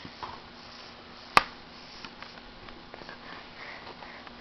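Quiet room with a baby's faint breathing and mouth noises, and one sharp click about a second and a half in.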